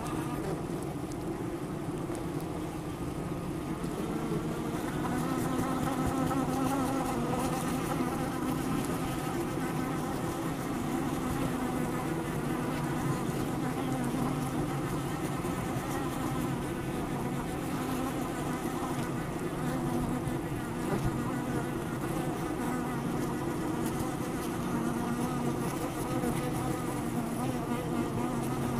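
Honey bees buzzing at their hive: the steady, many-voiced hum of a colony, swelling a little about four seconds in.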